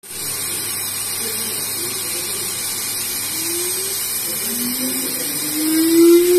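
CNC-4040 cast-iron milling machine cutting aluminium: steady spindle whine and hiss of the cut, with a lower tone rising in pitch from about halfway through and growing loudest near the end.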